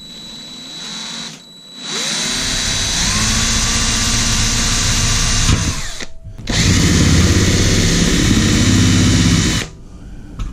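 Electric drill boring into the thin enamelled steel lid of a Weber kettle grill, one in a row of small holes drilled side by side to open a hole for a thermometer. It runs in two long bursts with a short stop about six seconds in, and its pitch rises as it spins up at the start of the first.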